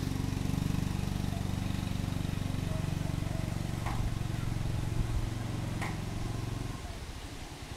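A steady low engine hum that stops about seven seconds in, with two short clicks about four and six seconds in.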